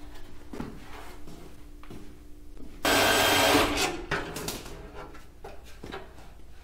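A power tool runs in one short burst of just under a second, about three seconds in, with scattered light knocks of tools and parts being handled around it.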